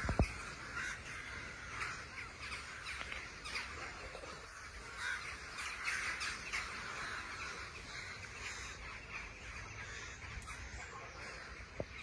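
A large flock of corvids circling overhead and calling all at once, a dense, unbroken chorus of overlapping caws. A brief knock just after the start.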